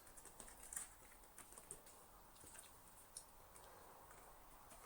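Faint, scattered small clicks and rustles of hands working a rubber seal onto a vacuum cleaner motor and its plastic housing.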